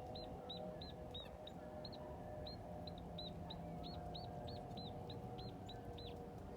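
A small bird calling a rapid series of short, high notes, about three to four a second, which stop about six seconds in.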